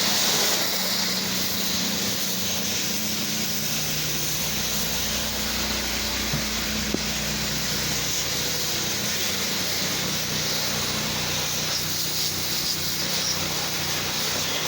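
High-pressure washer jet spraying water steadily, from a 4,000 PSI, 4 gallon-a-minute Hotsy machine, with the machine's motor humming underneath.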